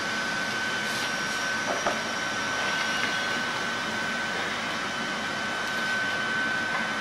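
A 24 V fuel-burning parking heater running, its blower giving a steady rushing with a high whine held throughout.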